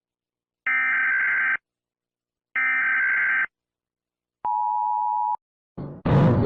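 Emergency Alert System-style signal: two harsh, buzzing digital data bursts of about a second each, a second apart, then a steady two-note attention tone lasting about a second. A louder, noisier sound cuts in near the end.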